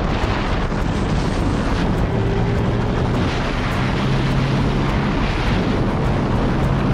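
Sportbike accelerating at highway speed, its engine running under heavy wind noise buffeting the microphone.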